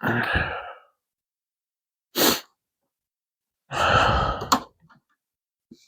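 A man's breath sounds: a heavy sigh-like exhalation, a short sharp sniff about two seconds in, and another long heavy exhalation about four seconds in, ending in a sharp click.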